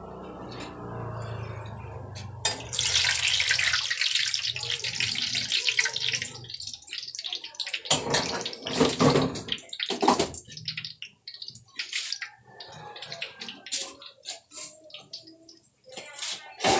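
Hot oil sizzling in a stainless steel pan as pieces deep-fry, a dense hiss about three seconds in that thins after a few seconds into scattered pops and crackles.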